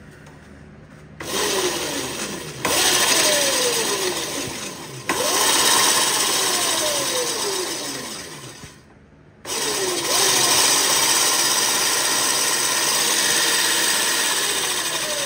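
Electric scooter's 36 V 800 W motor, overvolted on 48 V, spinning the rear wheel through its chain drive under twist-throttle bursts. It comes on about a second in and surges twice, with whining tones sliding down in pitch after each surge. It winds down and drops out briefly near nine seconds, then runs again before easing off at the end.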